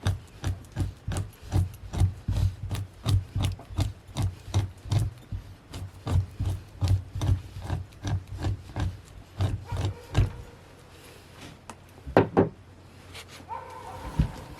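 Rapid rhythmic scraping strokes of a fleshing tool on an animal hide, about three a second, taking the membrane off the flesh side. The strokes stop about ten seconds in, and a couple of sharp knocks follow.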